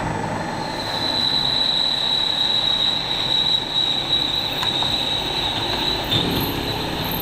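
Machine tool cutting aluminium, with a steady high-pitched whine that comes in about a second in over the noise of the running machine.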